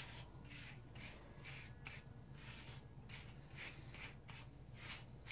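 Faint, repeated rustling strokes, about two or three a second, of hands smoothing and pressing pomaded hair.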